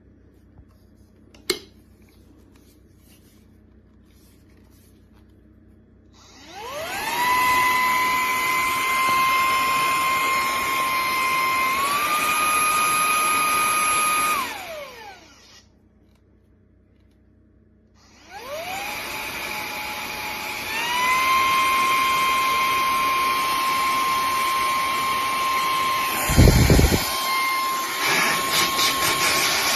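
Cordless handheld vacuum cleaner running: a click, then the motor spins up to a steady high whine, steps up in pitch, and is switched off and winds down. A few seconds later it spins up again, steps up once more and keeps running, with a few low bumps near the end.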